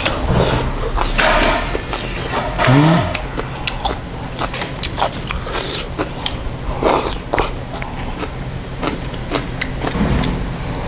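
A person eating janchi guksu close to the microphone: two long noodle slurps in the first three seconds, with a brief low grunt between them, then chewing with scattered small clicks and a few short slurps.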